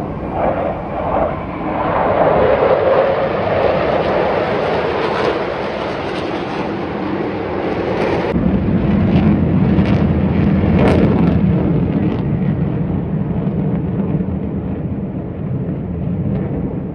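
Formation of fighter jets passing overhead: loud, continuous jet-engine noise. The sound changes abruptly about eight seconds in, becoming deeper.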